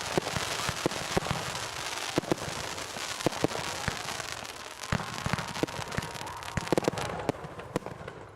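Consumer fireworks going off in quick succession: a dense crackle of many sharp pops, with a thin whistling tone at times.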